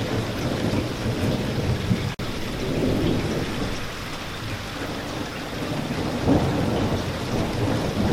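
Steady rain falling, with a low rolling rumble of distant thunder underneath. The sound drops out for an instant about two seconds in.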